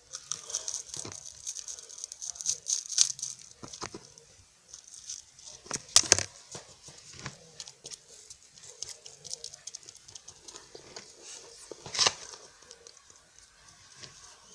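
Plastic snack wrapper of a French Pie pastry crinkling and being torn open close to the microphone, with sharp crackles about six and twelve seconds in.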